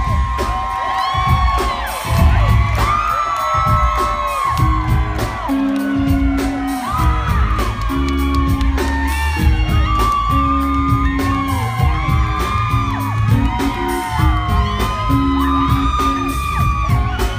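Live rock band playing, with electric guitar, bass and a steady drum beat, over a crowd that whoops and shouts.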